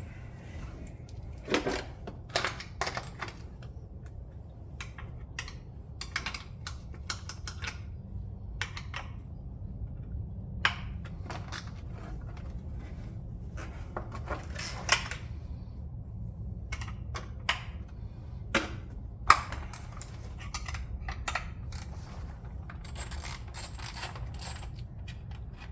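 Metal hand tools clicking and clinking in irregular strikes as a wrench works a cross-threaded nut off an engine stud, over a low steady hum.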